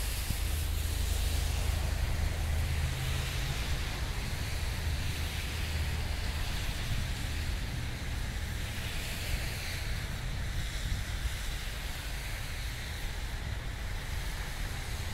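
Car driving along a city road, heard from inside the cabin: a steady low rumble of engine and road with an even tyre hiss over it.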